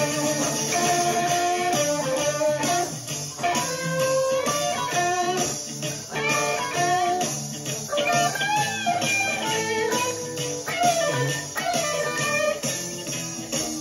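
Electric guitar on a gold-top Les Paul-style guitar playing bluesy lead fills with bent notes, over a band backing track with bass.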